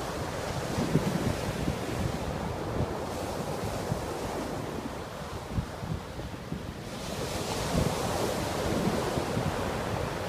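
Rough storm surf breaking and washing up a sandy beach, with wind buffeting the microphone. The hiss grows brighter and a little louder about seven seconds in.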